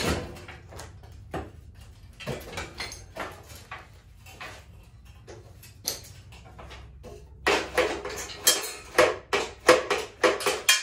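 Steel parts of a John Deere 185 lawn tractor frame knocking and clanking as the steering assembly is handled and worked loose. The knocks are scattered at first, then come as a quick run of rattling clanks, a few a second, over the last three seconds.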